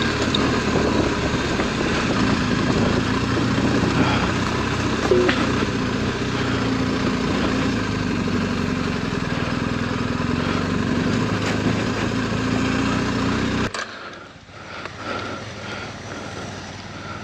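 BMW R 1250 GS's boxer-twin engine running steadily as the motorcycle rides a rough dirt trail. The engine sound cuts off abruptly about 14 seconds in, leaving a much quieter background.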